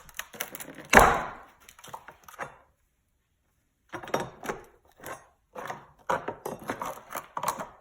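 Hard mold blocks being knocked, levered loose and handled, with one loud sharp knock about a second in, then a pause, then a run of clicks and clattering knocks.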